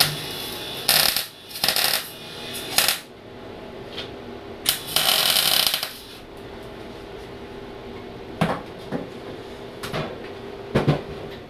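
Electric arc welder laying short bursts of weld, crackling in several quick tacks and then one longer run of about a second and a half, as a new bolt is welded onto a sheared bolt stub. The welding machine hums steadily underneath, and a few sharp knocks come near the end.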